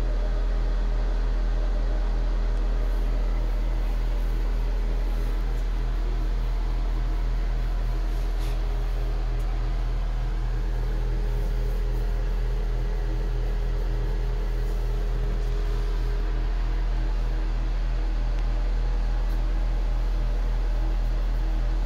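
A steady low machine hum over a faint hiss, unchanging throughout.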